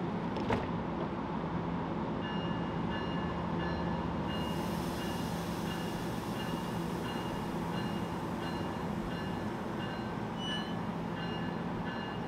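A commuter train standing at the platform, running with a steady low hum. From about two seconds in, a repeated electronic beeping sounds over it, and a faint hiss joins about four seconds in.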